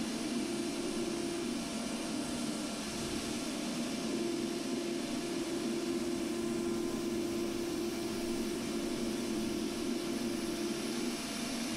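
Plasma cutter cutting rusted steel: a steady, loud hiss with a humming tone underneath. The tone drops out for a couple of seconds early on and again near the end.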